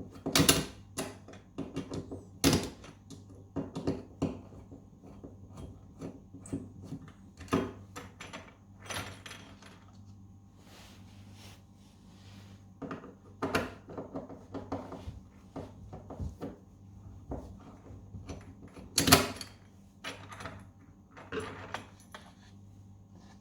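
Irregular metallic clicks, clanks and knocks of a kitchen cabinet hinge being unfastened and handled, the loudest knocks about half a second in, a couple of seconds later, and again near the end, over a faint steady low hum.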